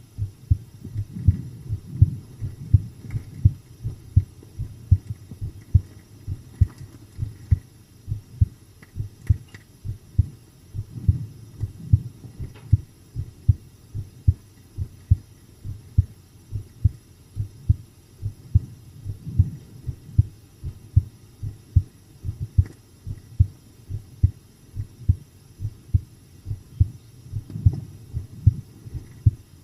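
A person's heart heard close up, beating at a calm, resting rate: a steady rhythm of paired low thumps (lub-dub).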